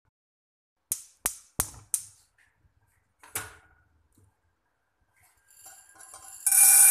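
Four quick sharp clicks, then a fifth a little later; near the end, dried mung beans poured from a glass into an empty enamel pot start to rattle loudly against the pot, which rings.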